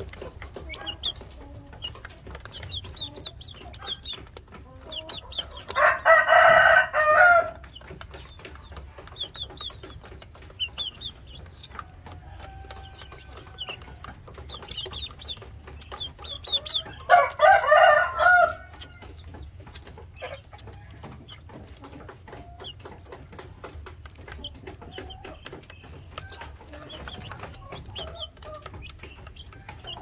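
Chickens in a coop: a rooster crows twice, about six seconds in and again about seventeen seconds in, each crow lasting about a second and a half and being the loudest sound. Between the crows there is steady soft clucking and short high calls from the young Aseel chickens.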